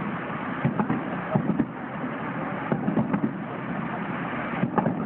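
Fireworks display: four clusters of sharp bangs and pops from bursting shells, a few quick reports in each, over a steady background noise.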